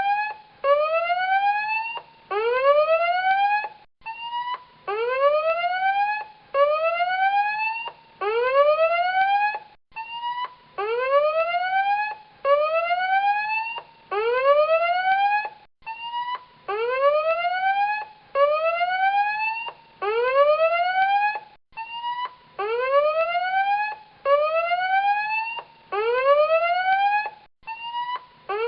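Tsunami warning alarm: an electronic whooping tone that rises in pitch over about two seconds, repeated in groups of three with a brief break between groups.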